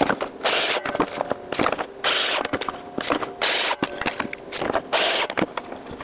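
A pine board sliding and scraping across a miter saw's table and fence in four short strokes, with small knocks and clicks of the wood being handled; the saw is not running.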